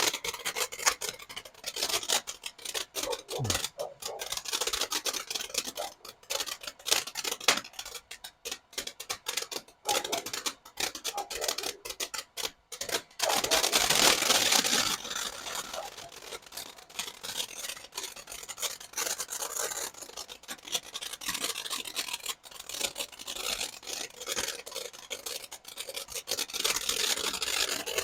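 Consumer firework burning with a continuous hiss and a dense run of sharp crackling pops, with a louder spell of hissing about halfway through.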